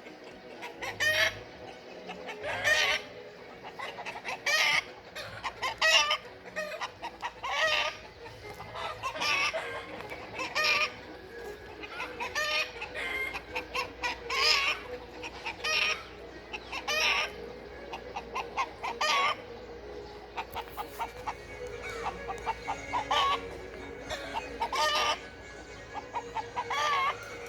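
A mother hen and her chicks calling: clucks and high peeps in short bursts, recurring every second or two.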